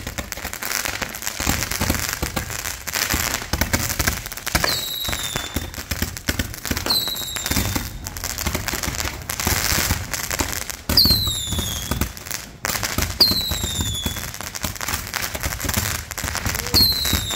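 Fireworks going off: steady dense crackling broken by sharp bangs, with five short whistles that slide down in pitch, spread through the display.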